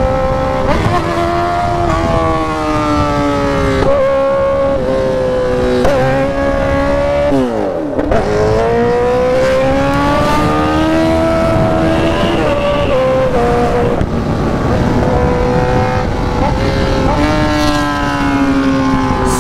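Sport motorcycle engine running hard on the road, its note falling away on closed throttle and climbing again several times, with a deep drop about eight seconds in. Short sharp cracks come through here and there: the exhaust popping on the overrun.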